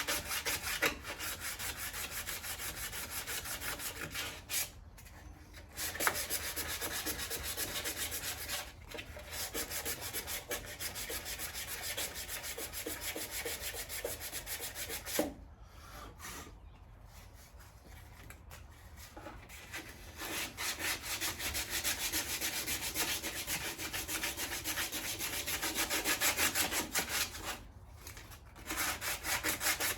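Sanding on a 1967 Mustang's body panels: a steady scrubbing rasp that halts for short breaks several times, with a longer lull about halfway through.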